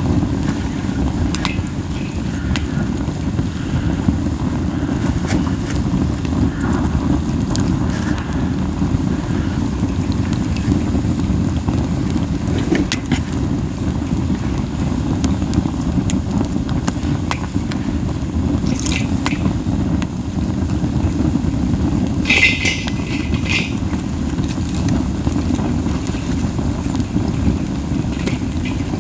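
Pine-cone campfire burning: a steady low rumble of strong flame buffeted by wind, with scattered soft crackles and pops from the small cones. A brighter cluster of pops comes about 22 seconds in.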